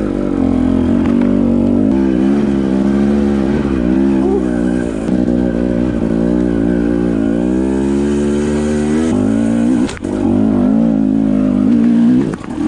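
Husqvarna TE250i two-stroke dirt bike engine running while being ridden, its revs rising and falling over and over with the throttle. The sound drops briefly about ten seconds in, then picks up again.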